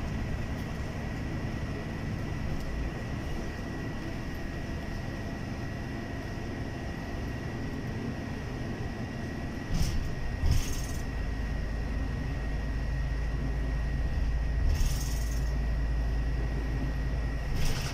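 Bus interior while riding: steady engine and road rumble that grows louder about ten seconds in, with a thin steady high tone throughout and a few brief clicks and hisses in the second half.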